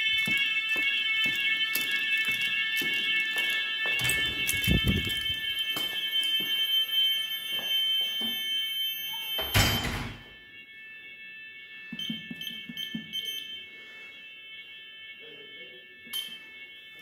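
Fire alarm sounders of a school's type 2a alarm system sounding a loud, steady alarm of several high tones at once. The alarm cuts off abruptly about ten seconds in, right after a loud knock, as the fire alarm control panel is reset. Faint tones linger afterwards.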